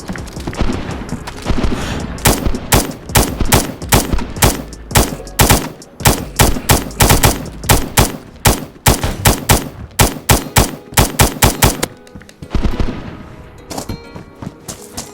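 A rapid, uneven series of sharp bangs, several a second, starting about two seconds in and stopping near the twelve-second mark.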